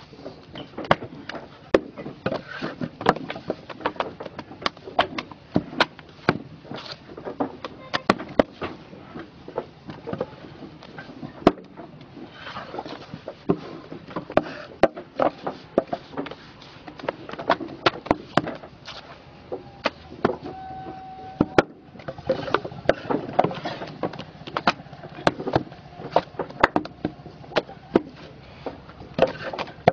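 Concrete paving blocks knocking against each other as they are set by hand into a sand bed, sharp irregular clacks several a second.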